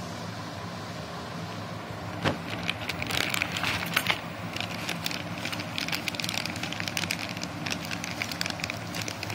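Anti-static plastic bag crinkling and rustling as a bagged graphics card is gripped and pulled out of its moulded pulp tray, starting about two seconds in with a sharp crackle, over a steady low hum.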